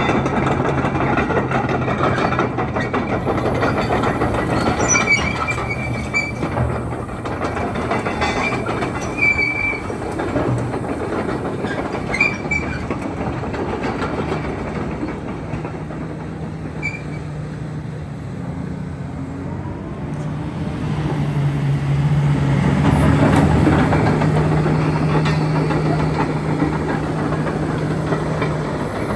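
Komatsu PC360LC-11 crawler excavator working: its diesel engine runs steadily under metal clanking, with short high squeals a few times in the first half. About two-thirds of the way through, the engine revs up and gets louder.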